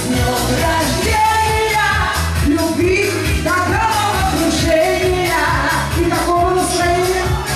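A woman singing a pop song into a microphone over an amplified backing track with a steady, pulsing dance beat.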